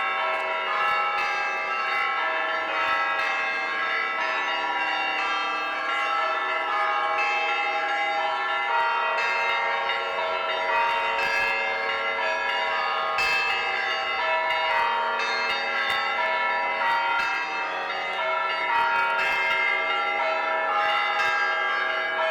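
Orthodox cathedral bells ringing a continuous peal: many bells of different pitches struck in quick succession, their tones overlapping and ringing on without a pause.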